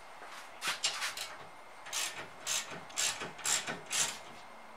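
Ratchet wrench tightening the bolts of a steel wall-mounted tire rack bracket, worked in a series of short ratcheting strokes, about two a second.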